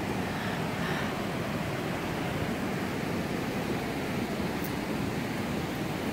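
River rapids and a small waterfall rushing over rock ledges: a steady, even rush of water.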